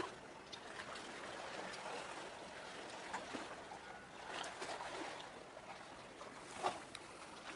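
Faint outdoor ambience by the sea: a steady hiss with scattered short clicks and chirps, and one sharper click about two-thirds of the way through.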